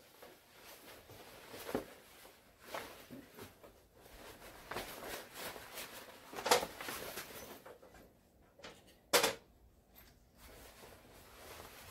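Scattered clicks and knocks of clips being pushed onto the metal lip of a van's rear door opening as a fabric bug screen is fitted, with light handling between them; the loudest come about six and a half and nine seconds in.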